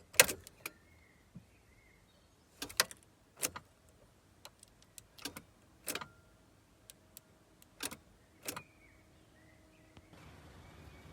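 A string of sharp, irregularly spaced clicks from a Volkswagen T4 van that won't start, with no sound of the engine cranking. A low steady hum begins near the end.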